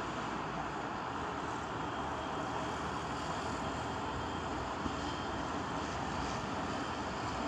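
Mobile crane's engine running steadily, an even machinery noise with no change.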